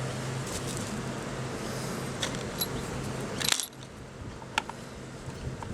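Small metal parts clicking and clinking as a washer and nut are fitted by hand onto a rotary encoder's threaded shaft. There are several light clicks, with the loudest cluster a little past halfway.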